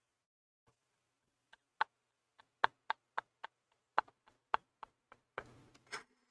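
A man laughing almost silently, a string of about a dozen short, sharp, irregularly spaced gasping clicks, then a breathy exhale near the end.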